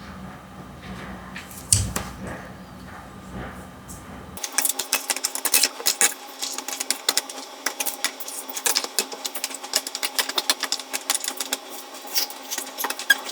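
Rapid crackling and clicking of plastic toy packaging being handled, getting much denser and sharper about four seconds in.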